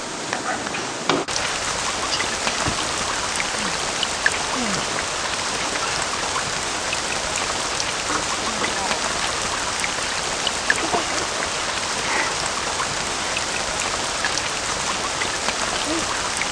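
Steady heavy rain with a dense hiss and scattered drop ticks, starting suddenly about a second in.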